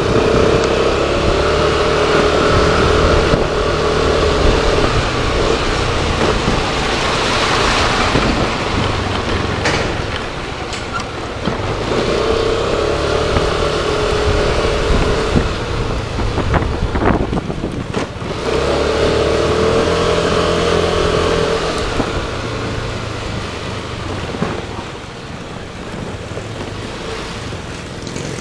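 Motorcycle on the road in traffic: continuous engine and road noise, with an engine hum that swells near the start, about halfway through and again about two-thirds of the way in.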